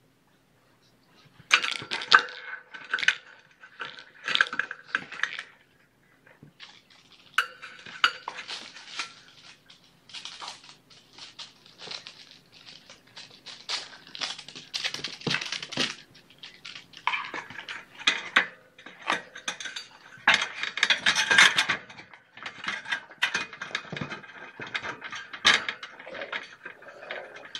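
Irregular clattering, clinking and rustling of kittens moving about and playing with small toys, starting about a second and a half in.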